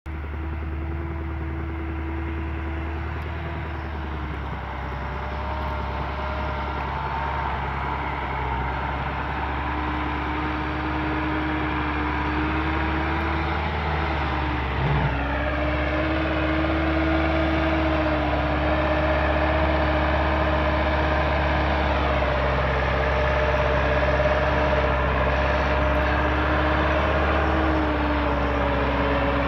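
Massey Ferguson tractor's diesel engine labouring up a steep slope, its pitch wavering and its sound growing louder as it comes closer. A short knock about halfway through.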